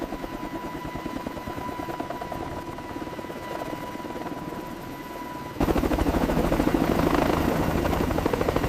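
Helicopter rotor beating with a fast, even chop, a thin steady high tone running alongside. About five and a half seconds in it turns abruptly much louder and keeps going.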